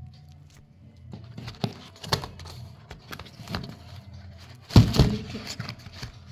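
Small card boxes being handled and shuffled inside a cardboard carton: scattered taps, knocks and rustles, loudest a pair of thumps about five seconds in. A low steady hum runs underneath.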